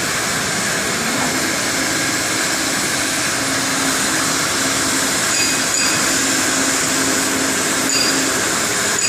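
CNC gantry cutting torch cutting through steel plate: a loud, steady hiss with a faint low hum under it.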